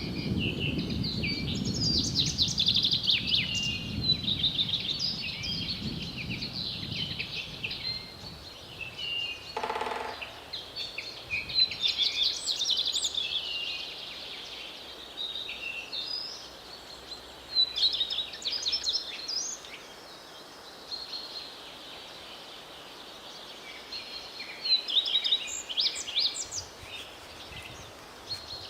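Forest birdsong: several small birds chirping and trilling in quick high-pitched phrases, over a low rumbling background that fades after the first several seconds. A brief rattle sounds about ten seconds in.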